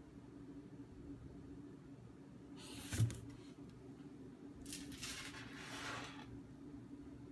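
Faint kitchen handling noises over a steady low hum: a short rustle ending in a single knock about three seconds in, then about a second and a half of hissing rustle.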